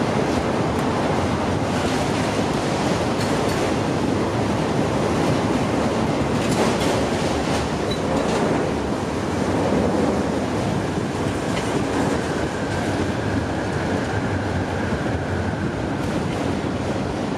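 Freight train of multilevel autorack cars rolling past at close range: a steady rumble of steel wheels on rail with scattered clicks from the wheels crossing rail joints. A faint high steady squeal joins in for a few seconds past the middle.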